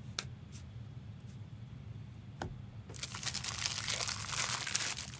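A few light clicks, then, about halfway through, plastic packaging crinkling steadily as it is handled.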